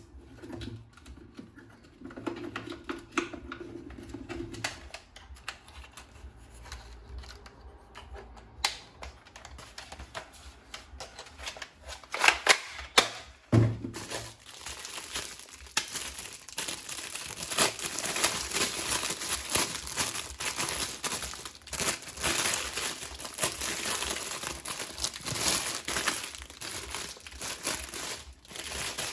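Packaging being handled: scattered clicks and taps with a few sharper knocks, then from about halfway on, continuous crinkling and crumpling of wrapping.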